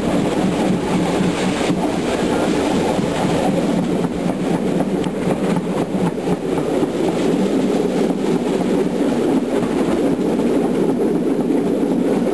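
Steady low rumble of a train's wheels rolling on the rails, heard from on board the moving train.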